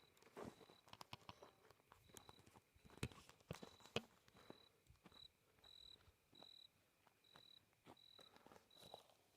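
Near silence with scattered faint clicks and knocks, the two loudest about three and four seconds in, and a faint high chirp repeating about every two-thirds of a second.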